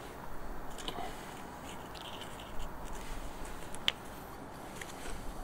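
Quiet handling sounds: light rustles and small clicks as a cardboard rocket tube is set upright on the floor and a bolt is pushed into it to press the fuel down, with one sharper click about four seconds in.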